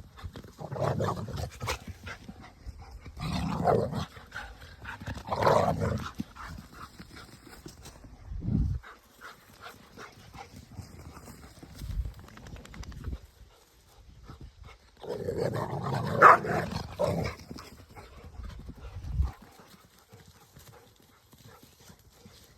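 Dogs playing rough together: dog noises and scuffling in irregular bursts of a second or two, with quieter spells between.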